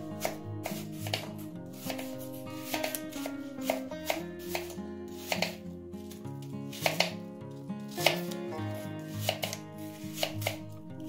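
A kitchen knife cuts a green apple into chunks on a wooden cutting board. Each cut goes through the crisp flesh and ends in a sharp tap of the blade on the wood, about two a second and irregularly spaced.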